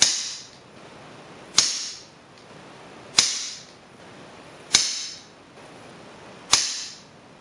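FX Revolution .22 semi-automatic PCP air rifle firing five shots, about one and a half seconds apart, each a sharp crack followed by a short ringing tail.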